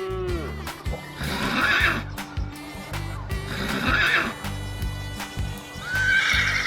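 Horse neighing three times, about a second in, near four seconds and near six seconds, over background music.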